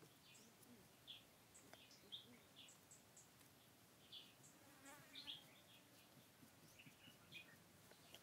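Near silence: faint outdoor ambience of scattered short, high chirps at irregular moments, with a faint buzz underneath.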